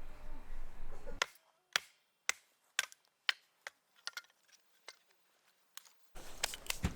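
A series of sharp chopping knocks, about two a second at first and fainter and sparser later.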